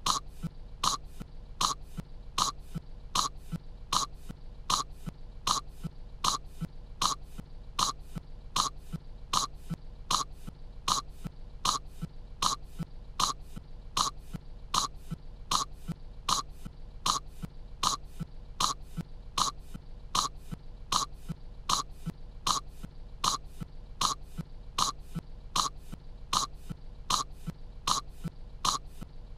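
A cartoon girl's voice coughing in short coughs that repeat at an even pace, about two a second: a single cough sound looped over and over.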